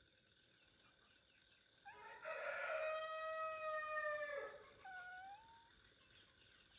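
A rooster crows once, starting about two seconds in and lasting nearly three seconds. A shorter, fainter rising call follows about five seconds in.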